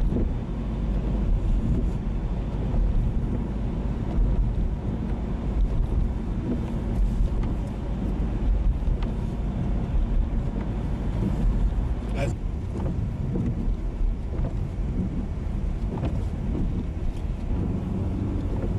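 Steady road and engine rumble heard inside a moving car's cabin, with one brief click about twelve seconds in.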